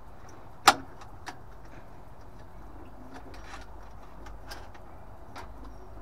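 A sharp metallic click about a second in, then a softer one and a scatter of light ticks and clicks: a flathead screwdriver levering the retaining clip off the flow-turbine pipe of a Worcester Greenstar Junior combi boiler.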